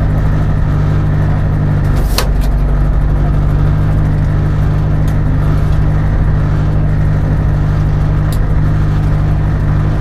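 Rally-prepared Peugeot 306 RWD's engine idling steadily with the car standing still, heard from inside the stripped cabin. Two sharp clicks sound over it, one about two seconds in and a fainter one later.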